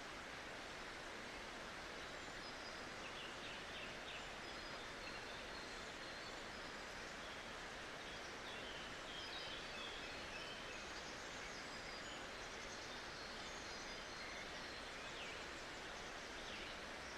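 Steady rushing of river water with small birds chirping on and off over it.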